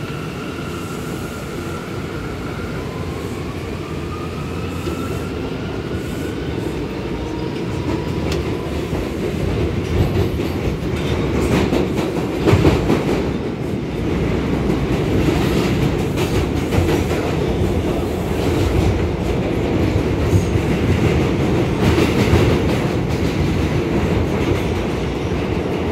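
R179 subway car pulling away from a station: the propulsion whine rises in pitch over the first several seconds as the train accelerates. The rumble then grows louder, with repeated clicks of wheels over rail joints as it runs through the tunnel.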